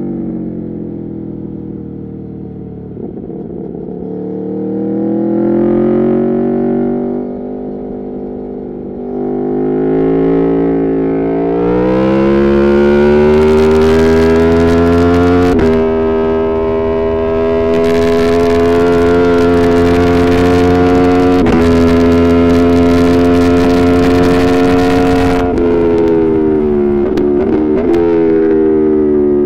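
Aprilia Tuono V4 Factory's V4 engine, loud through an Arrow GP2 exhaust with the dB killer removed, at speed on a track. The revs fall, then climb hard twice with sharp breaks at the gear changes, and hold high and steady for several seconds. Near the end the revs drop away, flickering as it shifts down.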